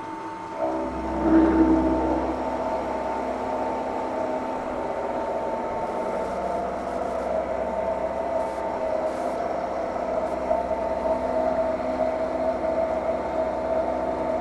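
Milling machine starting up about a second in and then running steadily, a reground carbide end mill spinning in the spindle, with several steady tones from the machine's motor and drive.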